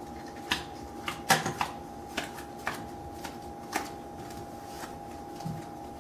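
Playing cards being dealt by hand, with a light snap as each card is flicked out, about every half second and somewhat irregular. A steady faint hum runs underneath.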